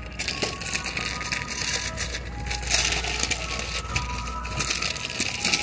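Dense crackling and rustling on the phone's microphone as it is carried along. Under it, the ice cream truck's chime jingle plays faintly as a run of thin notes.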